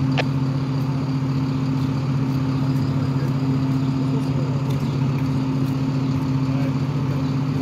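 Utility truck engine idling at the work site, a steady low drone that does not change.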